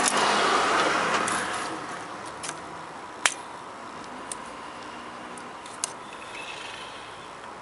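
Handling noises of parts being put back after an oil change: a rushing noise that eases off over the first couple of seconds, then a few sharp clicks and taps.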